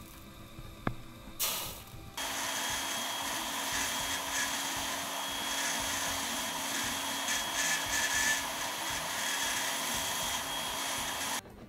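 Jeweler's handheld rotary tool running and working the edge of a small metal piece, a steady whir with a constant whine. Two short bursts come first, then it runs without a break from about two seconds in and stops abruptly just before the end.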